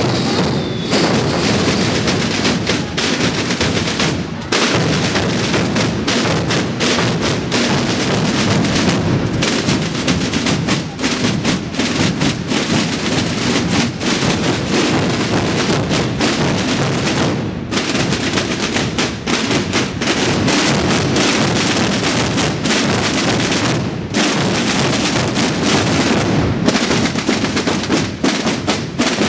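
Massed bombos and tambores, the bass drums and snare drums of many Holy Week brotherhoods, playing together: a loud, dense, continuous drumming with the deep bass drums underneath the rolling snares.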